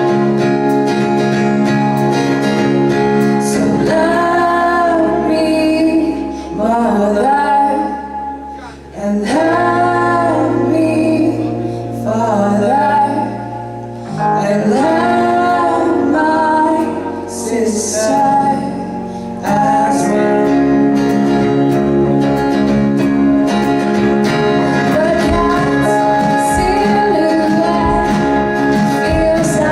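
A live band playing a song, with a female lead vocal over guitar and sustained chords.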